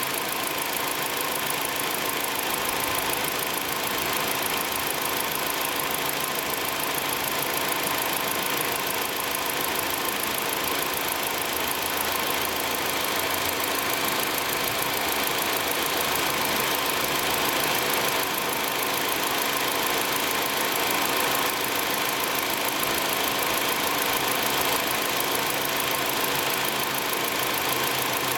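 2016 Nissan Versa's belt-driven A/C compressor running over the idling engine, heard close up in the engine bay: a steady mechanical whir with a faint steady whine, the normal sound of a healthy compressor on a new car.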